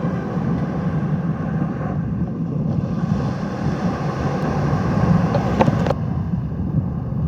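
Strong wind buffeting the microphone: a steady low rumble with no let-up, with a brief scrape or rustle about five and a half seconds in.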